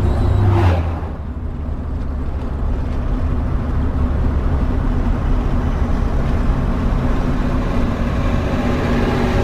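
Converted bus motorhome's engine running steadily at cruising speed, a low, even drone with road noise. There is a brief swell of noise in the first second.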